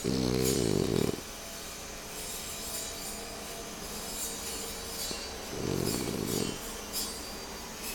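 A sleeping pet snoring: two loud, raspy snores about five seconds apart, each lasting about a second.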